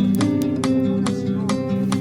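Background music: acoustic guitar strummed in a steady rhythm, about two to three strokes a second, in a flamenco-like style.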